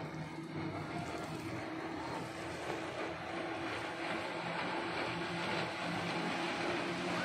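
A motor vehicle engine running at a steady speed, a low steady hum under an even rushing noise, getting gradually louder.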